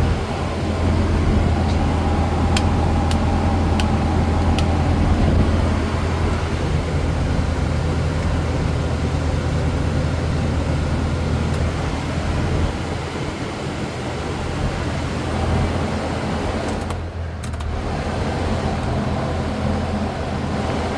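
Kawasaki Ridge Crew side-by-side running, a steady low engine drone under the rushing of its cab HVAC blower fan; the low drone falls away a little past halfway while the fan noise carries on.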